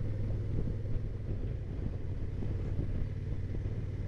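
Honda NT1100's parallel-twin engine running steadily while the motorcycle cruises along, a constant low drone.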